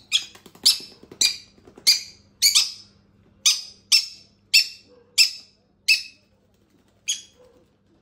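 Parrot chick giving a rapid series of short, harsh, rasping begging calls, a little under twice a second, while it is tube-fed hand-feeding formula from a syringe. The calls are the chick's feeding response and stop about seven seconds in.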